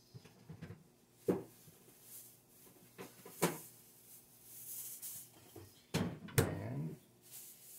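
Several sharp knocks and clunks of a refrigerator door being opened and shut as a container of grated zucchini is put away, the loudest pair about six seconds in, followed by a brief rattle.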